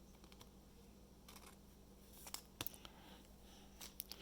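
Near silence: room tone with a steady faint low hum and a few faint, scattered clicks.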